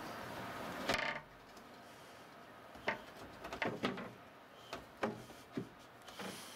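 Low hiss that ends with a short loud burst about a second in, followed by a handful of short, scattered clicks and knocks.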